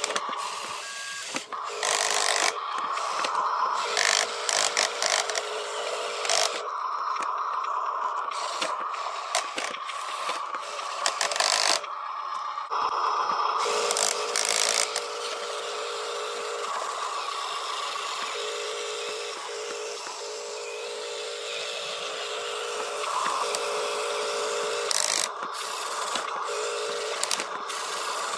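Electric drive motor and gearbox of a Huina radio-controlled dump truck whining at a steady pitch as it drives in runs of a few seconds, stopping and starting several times, with scattered clicks and crunches.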